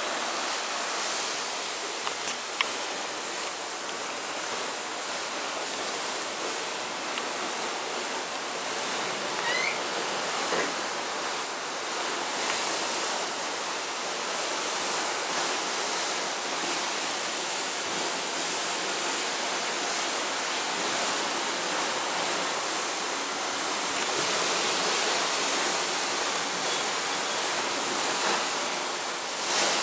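Steady rushing hiss of sea water churning along the hull of a cruise ship under way.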